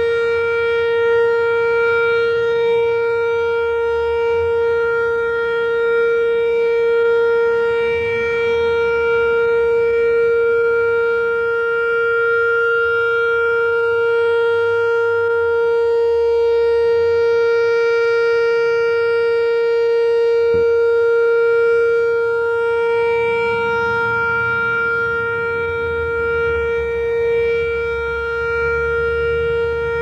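Whelen WPS-3016 electronic outdoor warning siren sounding its Alert signal: one steady, unwavering tone, swelling and fading slightly in loudness as its rotating speaker array turns.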